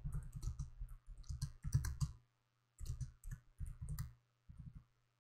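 Computer keyboard being typed on: irregular runs of quick key clicks, with short pauses a little over two seconds in and near the end.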